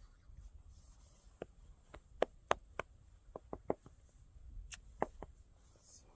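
A run of about a dozen sharp, irregular clicks and taps over about four seconds, several close together in the middle, from a man handling a horse at its head.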